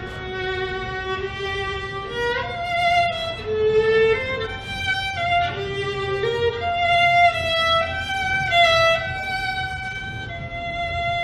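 A solo instrument playing a slow melody of long held notes, with short slides in pitch between some of them.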